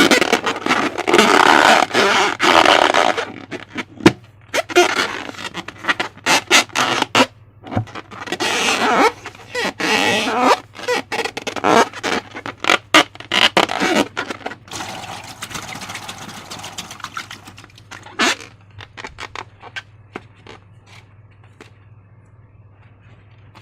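Sticky, crackling clicks of slime being squished and worked by hand. They come in dense bursts a few seconds long, then thin out to scattered clicks near the end.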